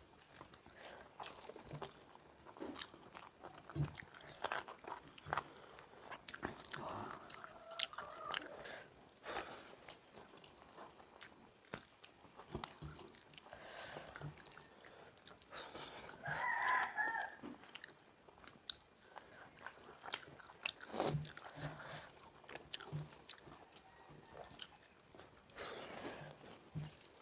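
Close-up eating sounds of two people eating rice and curry by hand: chewing, lip smacking and wet squishing of rice, with irregular small clicks of fingers and food on steel plates. About two-thirds of the way through comes a brief voice-like sound, the loudest moment.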